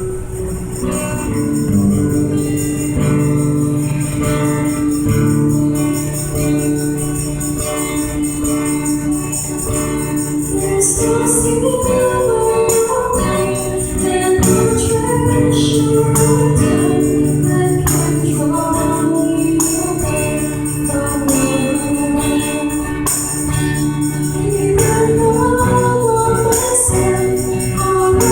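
A church praise band playing gospel music, with sustained chords and bass and voices singing, during a sound check.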